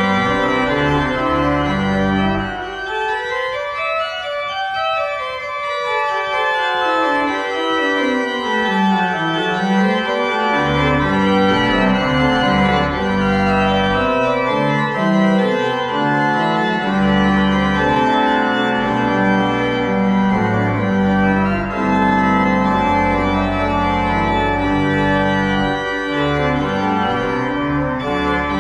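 Organ music: sustained full chords. A few seconds in, the bass drops out for several seconds while an upper line climbs and then falls back.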